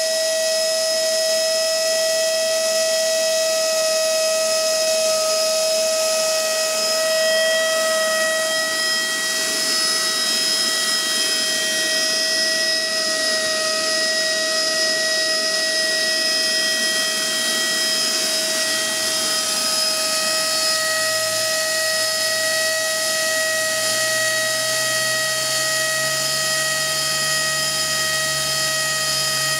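Electric motor and propeller of a Seawind-X RC seaplane running at a steady speed in a ground run-up, a constant high-pitched whine that holds one pitch throughout.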